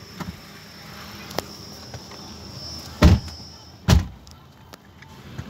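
Pickup truck doors slammed shut twice, less than a second apart, after small clicks and rustling of people climbing into the cab. A steady high insect buzz from outside stops as the second door closes.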